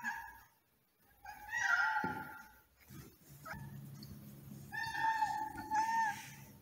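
Domestic cat meowing: a long meow about a second in, a short call in the middle, and a longer, wavering meow near the end.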